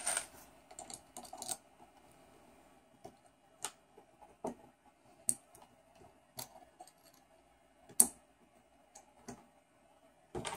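Scattered small metal clicks and taps from loose M3 machine screws being picked from a pile and a long screw being set into an aluminium extruder bracket; about nine separate clicks at uneven spacing, the loudest about eight seconds in.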